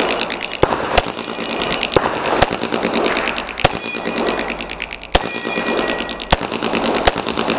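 Pistol shots fired in an irregular string, about eight in all. Several shots are followed by a brief high-pitched ringing of struck steel targets.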